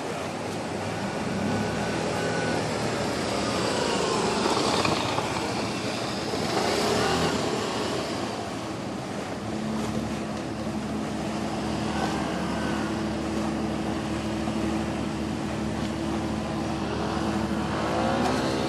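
Low engine hum over a steady wash of outdoor noise as a large motor yacht manoeuvres slowly in harbour. The hum steadies and grows clearer about halfway through, and a rising-then-falling engine note passes near the end.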